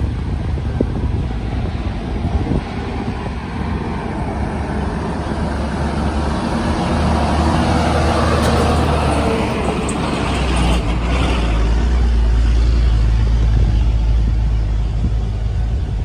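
A car running on a gravel dirt road, with a steady engine and tyre rumble. About halfway through, an oncoming truck passes close by: its noise swells, peaks and fades over a few seconds.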